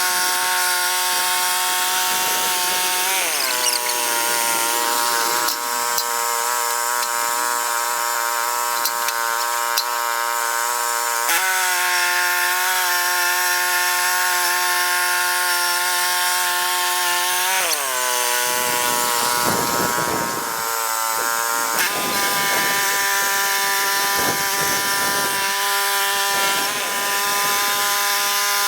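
Woodland Mills HM126 band sawmill running and cutting through a pine cant. Its steady pitched drone drops twice, about 3 and 18 seconds in, and comes back up each time.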